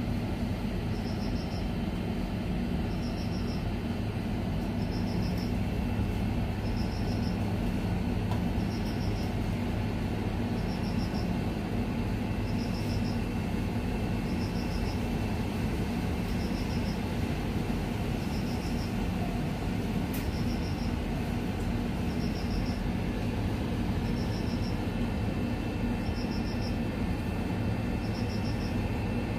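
Steady low rumble of background noise, with a short high chirp repeating about every two seconds.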